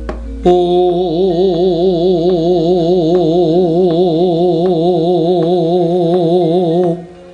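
A man sings one long held note with an even vibrato, in the manner of a wayang dalang's sung mood-song (sulukan), over light knocks about twice a second. The note stops about seven seconds in.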